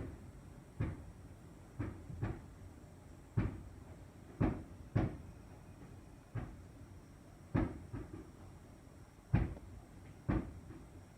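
Fireworks bursting at a distance, heard through closed windows: about a dozen muffled booms at irregular intervals, each with a short rumbling tail.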